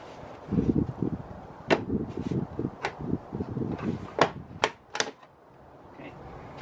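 Plastic side trim panel on the inside of a Toyota RAV4 Prime's rear hatch being pulled off by hand: plastic knocking and rattling, with sharp clicks as its retaining clips pop free, the last of them about four to five seconds in.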